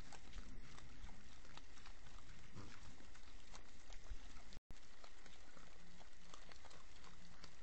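Wild hogs feeding, heard through a security camera's microphone: a steady hiss with scattered faint clicks and a low grunt a few seconds in. The sound drops out for an instant just past halfway.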